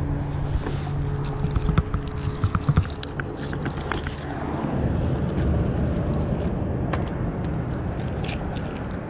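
A motor idling steadily, a low hum, under the handling of a magnet-fishing rope and a mud-caked find: a cluster of knocks and clicks about two seconds in, then rustling.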